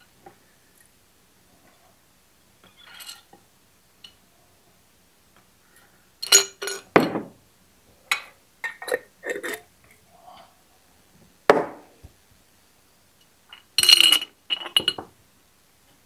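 Small metal carburetor parts clinking in a glass jar and the jar knocking down on a wooden workbench: scattered sharp clinks and knocks in clusters, loudest about six seconds in and again near the end.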